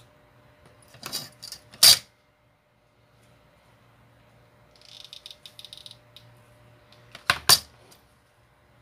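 Craft tools handled on a hard tabletop: a few sharp clacks about one and two seconds in, a brief rattle in the middle, and two loud clacks in quick succession near the end.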